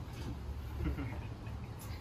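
Screws being tightened with a screwdriver into a steel fire pit's legs and rings. There are a few faint short squeaks about a second in and a light click near the end, over a low steady hum.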